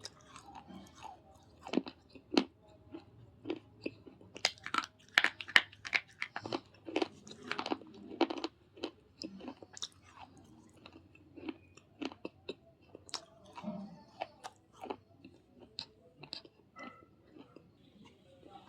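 Close-up mouth sounds of someone biting and chewing hard, brittle pieces of baked clay and slate pencil: sharp, irregular crunches, thickest in the middle of the stretch.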